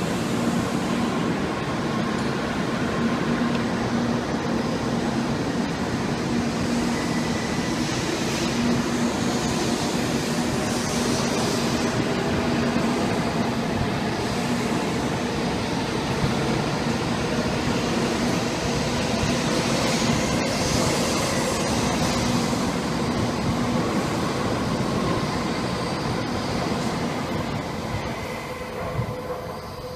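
Train running on the rails: a loud, steady running noise with a low hum, fading away near the end.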